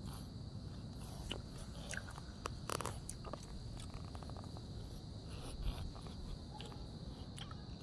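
A steady high-pitched drone over a low rumble, with scattered faint clicks and taps.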